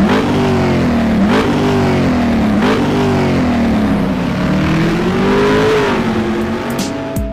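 Car engine accelerating hard, its pitch climbing and dropping abruptly twice, then rising slowly for a few seconds and falling away near the end.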